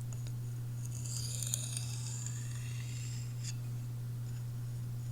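A Sebenza's Magnacut steel blade drawn in one long stroke across a sharpening surface, a hissing scrape lasting about two and a half seconds that ends in a light click, over a steady low hum.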